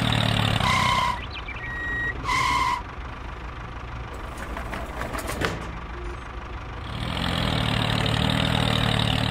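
Tractor engine idling, dropping away about a second in and coming back about seven seconds in. Two short beeps sound about a second and a half apart early in the quiet stretch, and a few light clicks come in the middle.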